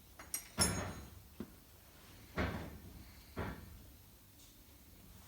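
Metal parts of a tractor hydraulic spool valve being handled and knocked together during reassembly. There is a short ringing metallic clink twice in the first second, then single dull knocks about once a second.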